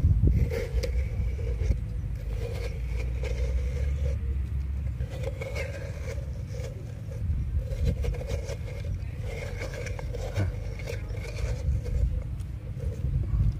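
Metal spoon scraping watermelon flesh out of the rind in repeated strokes, over a steady low rumble.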